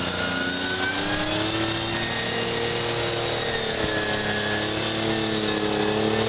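Engine of a lifted SUV on oversized tractor-tread mud tyres, pulling hard under load as it climbs a steep sandy slope. The engine note rises slowly, holds steady, then edges up again near the end.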